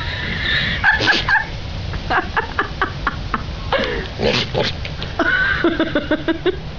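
Goats bleating: several loud calls in a row, some of them quavering, broken into quick stuttering pulses.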